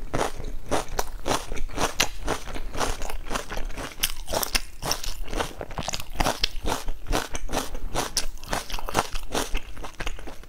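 Mouth chewing a bite of raw red onion, a steady run of crunches several times a second, then biting into a soft steamed dumpling.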